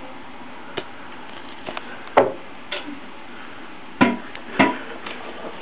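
A handful of sharp knocks and taps on a hard surface, the three loudest about two, four and four and a half seconds in.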